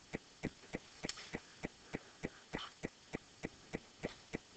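Faint, rapid, perfectly even ticking, about three clicks a second, with two soft brushing sounds, one about a second in and one past the middle.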